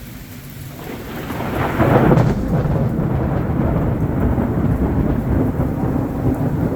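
Thunder rumbling, building over the first couple of seconds to its loudest point and then rolling on, with heavy rain hissing underneath.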